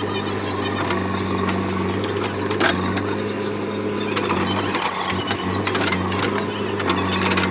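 Diesel engine of a JCB backhoe loader running steadily under work, with a few sharp metallic knocks and clanks from the working machine.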